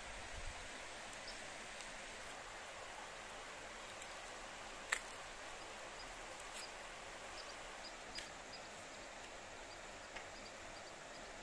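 Steady rush of a flowing river, with a few sharp clicks and snaps as an onion is peeled and cut with a knife, the loudest about five seconds in. Faint high peeps come and go in the second half.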